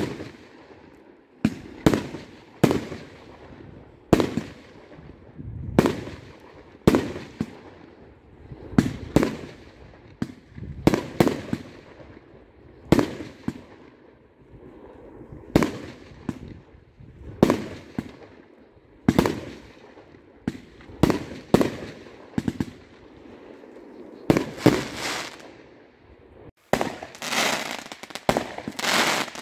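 Aerial firework shells bursting in a steady series, a sharp bang about once a second, each trailing off in an echo. Near the end the bursts come thicker and longer, with crackle.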